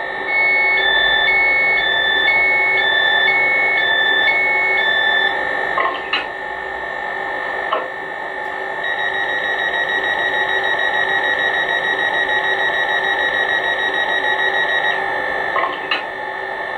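Hornby Class 800 model's DCC sound decoder with a Legomanbiffo sound file playing through its megabass speakers while the train stands: a steady idling hum under alternating two-pitch electronic beeps for about five seconds, a few short clunks, then a rapid pulsing beep from about nine to fifteen seconds in.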